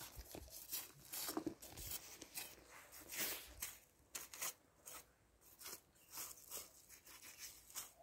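Butcher's knife cutting and pulling through pork fat and meat as a pig's front shoulder is worked free of the carcass: an irregular series of short, faint scraping and tearing strokes.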